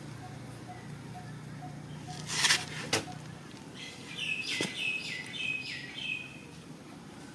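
A bird calling in a quick run of about six short, falling chirps. A couple of seconds before the chirps there is a brief loud burst of noise, the loudest sound here, followed by a single click.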